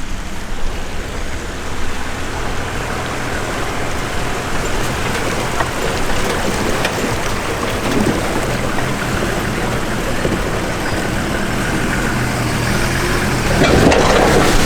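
A 2005 Toyota Troop Carrier's engine pulling under load through a deep creek crossing, with water splashing and rushing around the vehicle. The splashing gets louder near the end.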